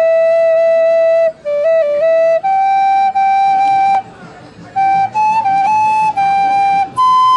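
Wooden flute playing a slow melody of long held notes with short breaks between phrases. The last note, near the end, is the highest.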